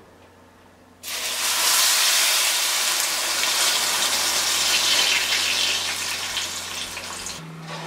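Blended raw tomato sauce hitting hot oil in a pan and sizzling. The sizzle starts suddenly about a second in and eases off near the end.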